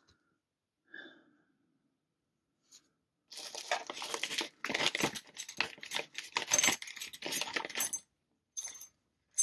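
Small metal lock parts rattling and clinking together for about five seconds, starting about three seconds in, as they are rummaged through, followed by a few short clinks near the end.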